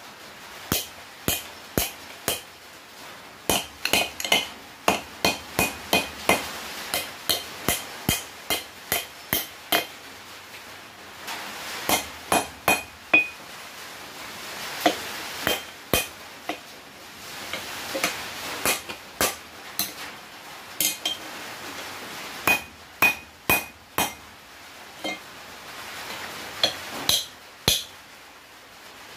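A hand hammer striking hot 1/2-inch round steel bar on an anvil: quick runs of sharp blows, each with a short metallic ring, broken by brief pauses between runs.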